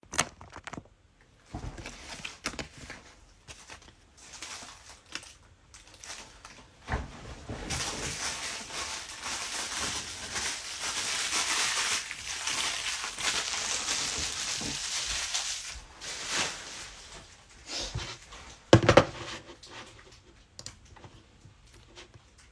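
Plastic wrapping being crinkled and handled, with a long stretch of rustling in the middle, scattered handling knocks and one sharper knock near the end.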